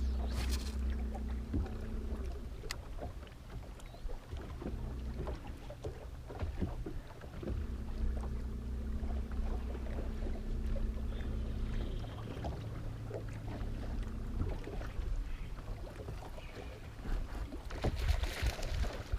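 Electric trolling motor on a bass boat, a steady low hum with a faint whine that cuts in and out in spells as the boat is worked along. There are small knocks and clicks, and a louder rushing noise near the end.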